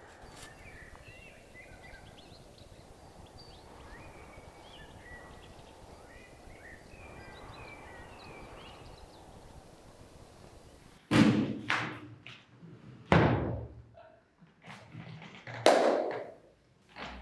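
Faint forest ambience with scattered bird chirps, then three loud heavy thuds about two seconds apart, the first about eleven seconds in.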